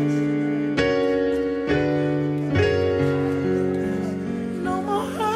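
Keyboard playing sustained chords, a new chord struck about every second. A voice rises briefly near the end.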